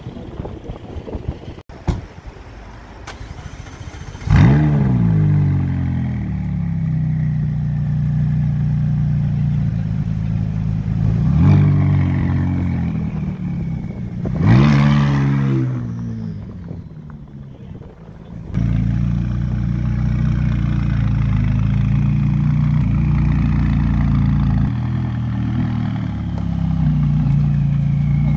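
McLaren sports car's twin-turbo V8 starting with a sudden loud flare about four seconds in, then settling to idle. The engine is blipped twice, each rev rising and falling, and a few seconds later it steps up to a louder steady idle.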